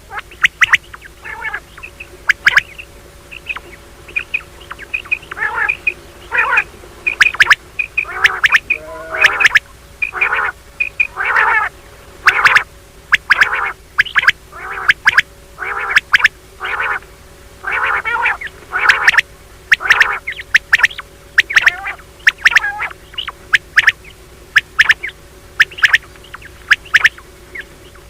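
Common quail calling: short calls repeated one or two times a second, unevenly spaced.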